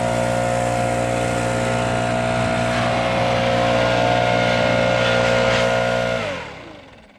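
Gas-engine blower running steadily at high throttle with a rushing blast of air, used to blow chaff out of a combine's air-to-air cooler. About six seconds in its pitch sags and the sound fades out.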